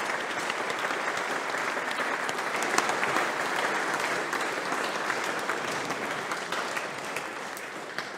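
Audience applauding, holding steady and then fading away near the end.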